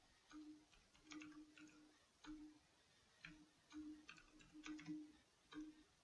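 Faint computer keyboard typing: about a dozen irregularly spaced keystrokes, each a short click with a soft thud under it.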